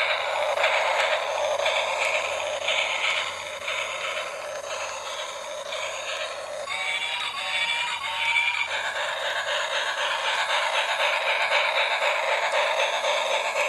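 Battery-powered toy steam locomotive playing its built-in electronic sound effects through a small, tinny speaker: a rhythmic chuffing, with a tooting whistle about halfway through, over the rattle of the toy running on its plastic track.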